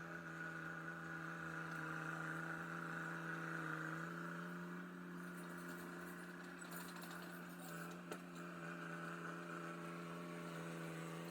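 Caterpillar Drott track loader's diesel engine running steadily while it cuts a drainage ditch, its note stepping slightly higher about four seconds in. A single sharp click sounds near eight seconds.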